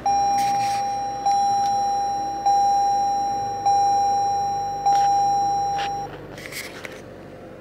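A Toyota RAV4's dashboard warning chime dinging five times, about 1.2 seconds apart. Each ding is a clear mid-pitched tone that fades slowly until the next one. The chiming stops about six seconds in.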